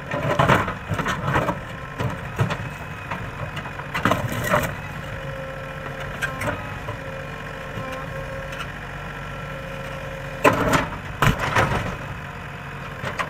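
JCB 3DX backhoe loader's diesel engine running steadily as the backhoe digs rocky ground, with loud clanks and scrapes of the bucket against stones near the start, around four seconds in, and twice near the end.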